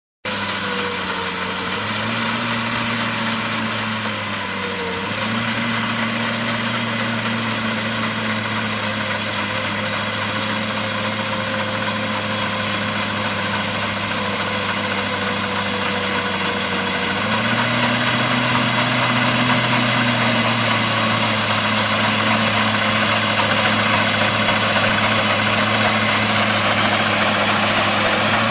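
Mini combine harvester's engine running steadily, its pitch stepping up and back down twice as the revs change.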